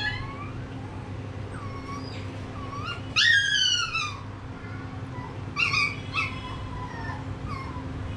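Baby macaque crying in a series of high calls, each falling in pitch. The loudest comes about three seconds in and two more follow near six seconds, with fainter calls between. A low steady hum runs underneath.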